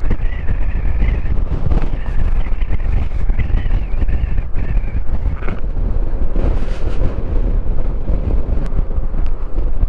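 Heavy wind buffeting on the microphone of a Yamaha scooter riding at road speed, with the scooter's running engine and road noise underneath.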